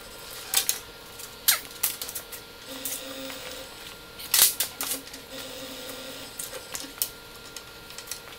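Metal roller chain of a Maslow CNC clinking and rattling in irregular clicks as it is handled and hooked onto the motor sprocket, the loudest clatter about halfway through.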